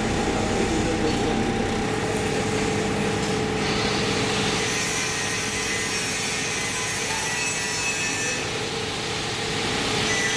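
Wood grain coating machine running with a steady, noisy rubbing sound. A loud hiss joins in about four seconds in and drops away after about eight seconds.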